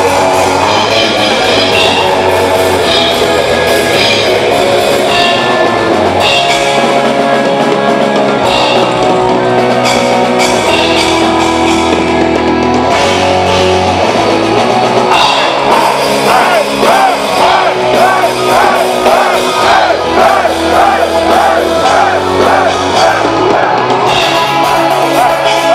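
Live melodic death metal band playing loud, with distorted electric guitars and a drum kit. About halfway through, a guitar lead of fast, wavering repeated notes comes in over the band.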